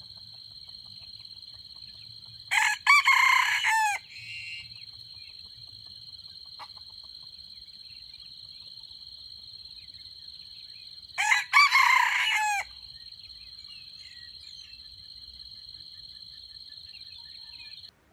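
Red junglefowl rooster crowing twice, each crow short and clipped, about ten seconds apart, over a steady high insect drone that cuts off just before the end.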